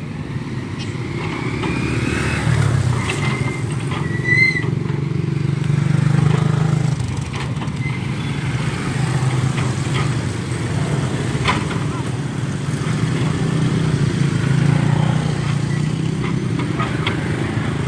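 A heavy vehicle's engine running steadily, swelling in level now and then, with a few scattered knocks and a brief high squeal about four seconds in.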